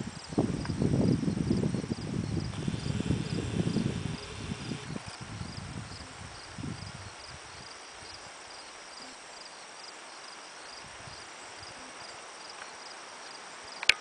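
Crickets chirping in a steady, evenly pulsing rhythm, with a low rumbling noise on the microphone during the first four or five seconds that then dies away. A sharp click comes right at the end.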